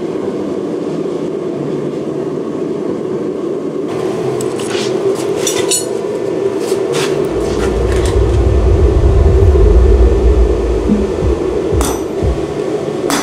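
A forge runs with a steady roar while hot steel is handled with tongs, giving metal clinks. Near the end come sharp metal-on-metal strikes as the red-hot steel is worked on the anvil, and a loud low rumble swells and fades in the middle.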